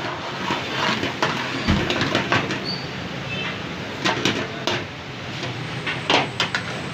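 Busy kitchen noise: a steady low mechanical hum under scattered clatter and knocks, with one deep thump about two seconds in.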